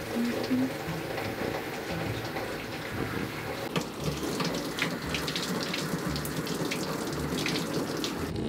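Shower-head water running and splashing over a wet French bulldog and into a stainless steel grooming tub as she is rinsed, with scattered splashes; the flow stops abruptly at the very end.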